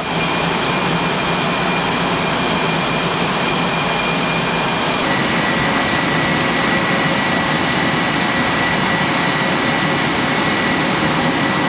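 Jet aircraft engines running on a carrier flight deck: a loud, steady noise with high whining tones, which change pitch abruptly about five seconds in.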